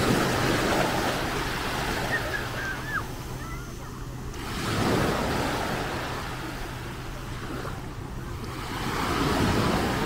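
Small Mediterranean waves washing up onto a sandy beach, the wash swelling and fading three times: at the start, about five seconds in, and near the end.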